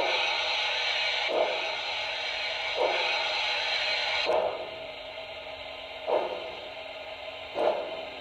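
Sound decoder of an HO-scale Broadway Limited Paragon 2 Pennsylvania Railroad 2-10-0 Decapod model playing slow steam-locomotive chuffs through its small speaker, about one every second and a half, over a steady steam hiss that drops away about four seconds in.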